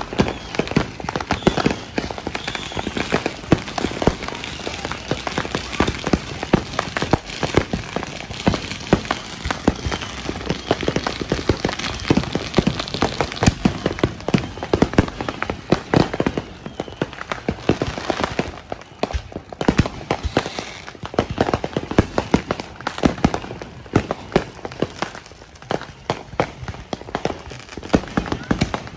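Dense, unbroken barrage of consumer fireworks and firecrackers going off, many pops and bangs every second, easing briefly about two-thirds of the way through.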